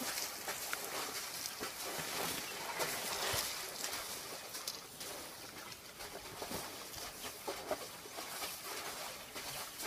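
Wet mud and water sloshing around a baby elephant lying in the mud, with many small scattered splashes.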